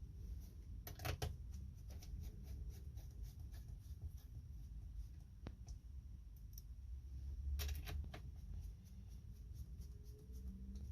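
Small clicks and taps of laptop parts being handled during a hard drive / SSD upgrade, in a cluster about a second in, a single tick midway, and another cluster near eight seconds, over a low steady rumble.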